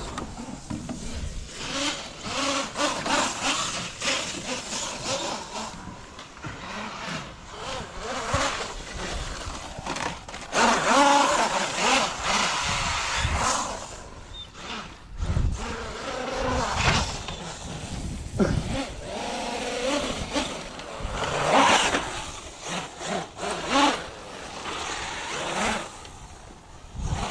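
Large electric RC truck driving across dry grass and sandy dirt, its motor whining up and down in repeated bursts of throttle, loudest about 11 and 22 seconds in.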